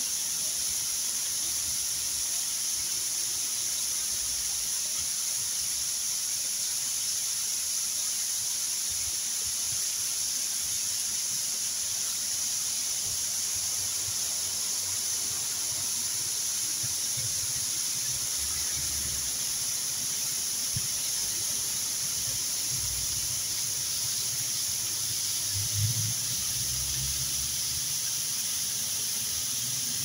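Waterfall: thin streams of water pouring down a rock face and splashing into the pool below, a steady hiss. A low rumble comes and goes in the second half.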